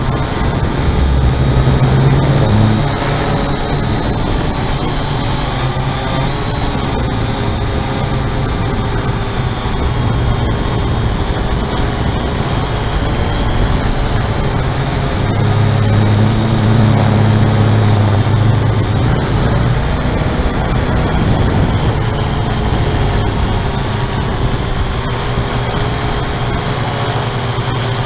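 Syma X8-C quadcopter's motors and propellers whirring steadily, heard from a camera mounted on the quad, with a low rumble that swells about two seconds in and again from about fifteen to nineteen seconds.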